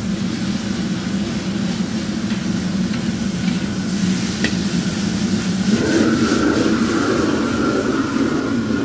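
Diced beef sizzling in a wok over a high gas flame on a commercial wok burner, with the burner's steady rushing noise underneath and the metal ladle stirring and scraping. A sharp tap of the ladle on the wok about four and a half seconds in, and the sizzle and burner noise grow louder from about six seconds.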